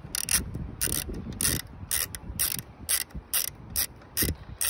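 Small hand ratchet with a Torx bit clicking in short back-and-forth strokes as it undoes a screw, about two to three sharp clicks a second, unevenly spaced.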